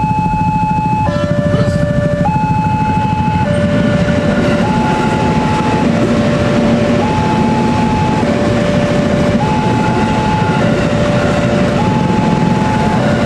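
Level-crossing warning alarm sounding its alternating two-tone signal, a higher tone then a lower one, each held a little over a second. From about four seconds in it is joined by the rising running noise of an electric commuter train passing over the crossing.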